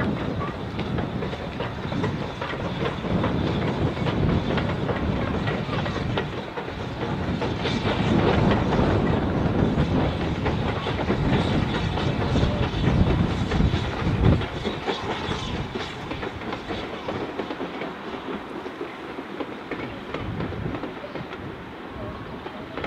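Steam locomotive hauling a passenger train along the line, its exhaust and the running of the coaches on the rails carrying across the valley, dying away over the last several seconds as the train draws off.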